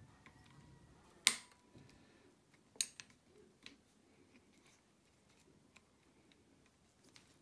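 Two sharp metallic clicks from an air rifle being handled, the first louder with a brief ring after it, then a few faint ticks.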